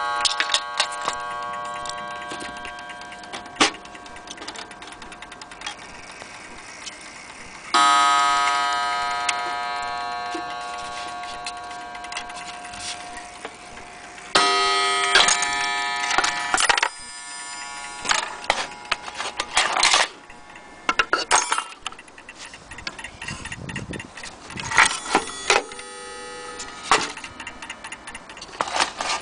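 A mantel clock's coiled wire gong is struck, and each note rings on and slowly fades. The longest rings come about a quarter and halfway in, the second one cut off suddenly. Between the rings, clock parts click, knock and rattle as they are handled, with a few short rings near the end.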